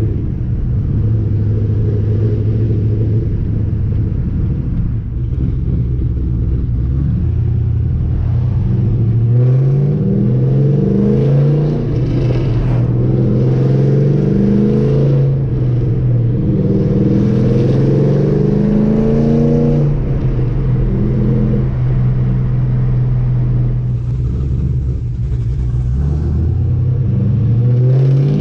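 Camaro SS's cammed V8 running: a steady engine note for the first several seconds, then from about ten seconds in it accelerates, the pitch climbing and dropping back several times, as through gear changes, before settling to a steady note again, with another climb right at the end.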